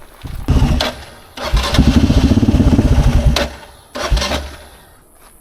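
Carbureted motorcycle engine being cranked on its starter without catching: a short crank, a rhythmic crank of about two seconds, then a brief one. The bike won't start.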